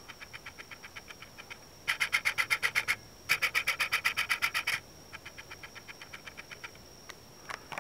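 Rapid chirping calls in trains of about ten chirps a second, each train lasting a second or so. Loud trains alternate with fainter ones, as if answering back and forth. A thin, steady high whine runs underneath.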